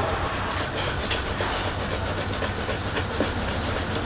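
Small wooden rolling pin worked quickly back and forth over a thin dough wrapper on a floured wooden table: a steady, rhythmic clatter of wood rolling on wood, with a low hum underneath.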